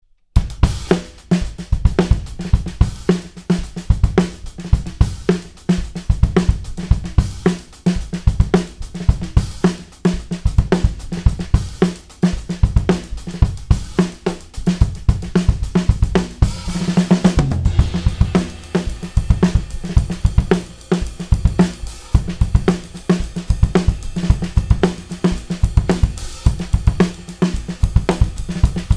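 A full acoustic drum kit played in a steady beat: kick drum, snare, hi-hat, toms and cymbals, close-miked and compressed, with the room's ambience. About seventeen seconds in, a swell of cymbal and tom ringing breaks the pattern before the groove carries on.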